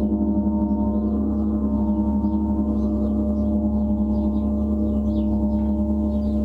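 Gong played in a continuous roll: a sustained wash of deep, layered tones with a quick, even pulsing in loudness.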